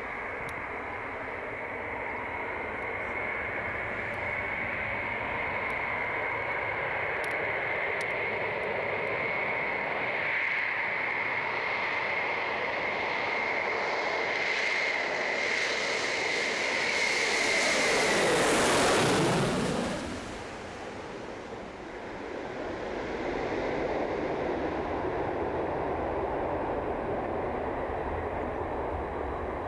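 Concorde's four Rolls-Royce/Snecma Olympus 593 turbojets on landing approach: a steady high whine that grows louder as the aircraft nears. About two-thirds of the way through it passes overhead, the whine drops away and the noise sweeps down in pitch. A broad engine rumble goes on as it lands.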